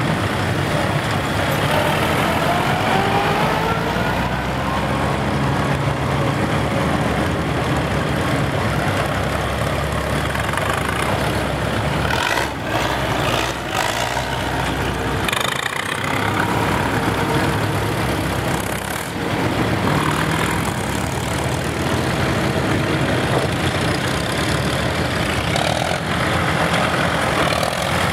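Engines of a line of vintage farm tractors (Oliver, Allis-Chalmers and Farmall) running as they drive past one after another. One engine's pitch rises a few seconds in as it picks up speed.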